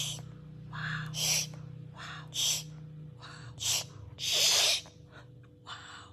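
A young child's short, noisy breaths, in and out about once a second, with one longer breath about four seconds in, from a child who has a cough.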